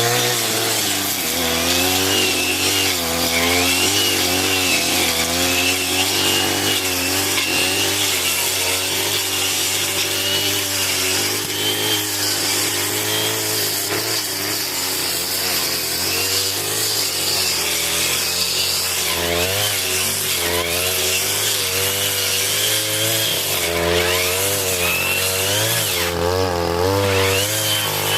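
Two-stroke 40cc brush cutter running at high revs, its engine speed dipping and recovering again and again as the 40 cm blade works through thick grass.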